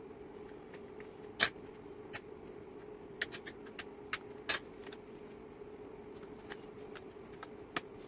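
Small hard plastic clicks and taps from handling a Redragon K596 mechanical keyboard and its keycaps and switches. There are about a dozen, irregularly spaced, the sharpest about one and a half seconds in and a quick cluster around three seconds in, over a steady low hum.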